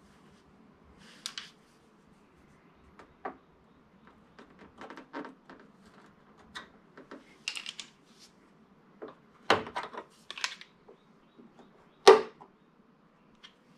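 A metal pick and a plastic trim pry tool working at a BMW M2's chrome fender side grille: scattered small clicks and scrapes of tool on plastic trim. Two louder snaps come in the last third as the grille's retaining clips pop loose.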